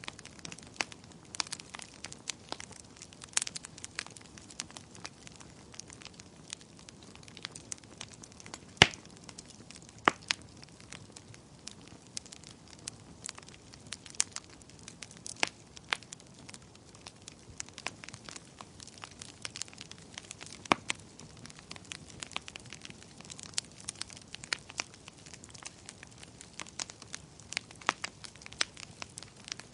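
Wood fire crackling: irregular sharp pops and snaps over a faint low hiss, with one louder pop about nine seconds in.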